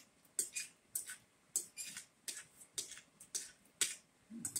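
Eating sounds: a run of short, soft clicks and smacks, about two to three a second, from chewing and a spoon and fork working food on a plate, with a brief low hum near the end.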